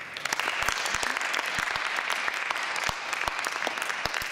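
Audience applauding: many hands clapping, breaking out all at once and keeping up steadily.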